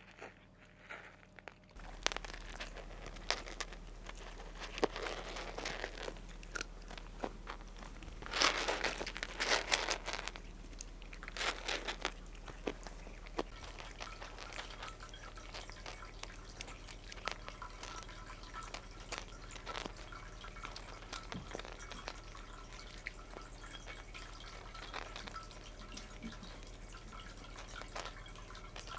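Cats crunching dry kibble off the floor: a scatter of short crunches and clicks, busiest from about eight to twelve seconds in, over a low steady hum.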